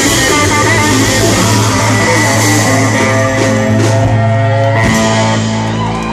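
Live band playing loud amplified rock music with guitars and keyboard. From about five seconds in the band settles into a steady held chord.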